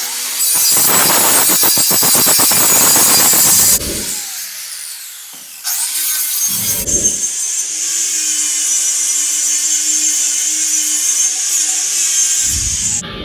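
Angle grinder grinding down old welds on a steel snowplow frame: a loud rough grind for the first few seconds, a short pause and burst, then a steadier high hiss until it stops near the end.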